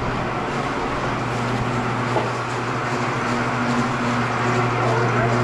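Automatic copper-wire stripping machine running steadily with a constant low hum as it strips 500 MCM copper cable.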